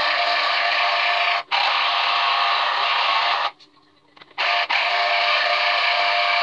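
Electric citrus juicer running as orange halves are pressed down onto its reamer cone, a steady whirring motor. It stops for a moment about one and a half seconds in, and for about a second midway while a fresh half goes on, then runs again.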